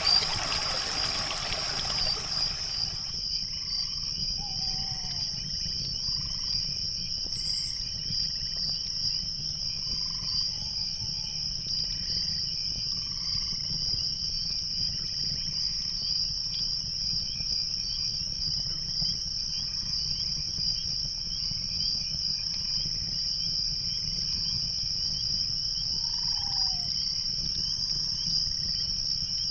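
Crickets chirping in a steady night chorus, with a sharper insect chirp every couple of seconds and a few faint short calls. A stream's rushing water cuts off about three seconds in, leaving the crickets over a low steady rumble.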